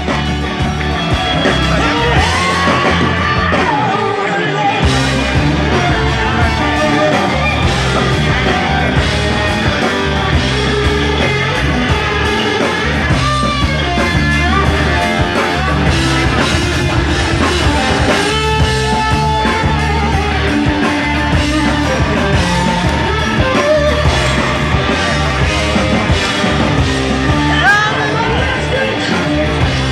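Hard rock band playing live at full volume: fuzz-distorted electric guitar over bass and drums. The low end drops out for a moment about four and a half seconds in.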